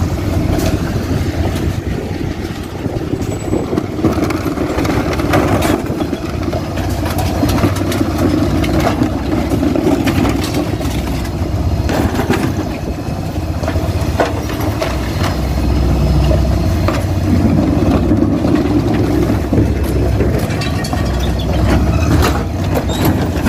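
Faun Rotopress refuse lorry's diesel engine and hydraulics running steadily at the rear, swelling for a few seconds past the halfway mark, with scattered knocks and clatters of plastic wheelie bins being handled and tipped on the bin lift.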